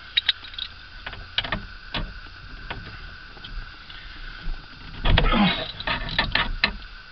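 Hand tools clinking as a 19 mm socket and extension are fitted together and onto the steering-wheel nut: a few sharp metal clicks, then a denser run of rapid clicking and rattling about five seconds in.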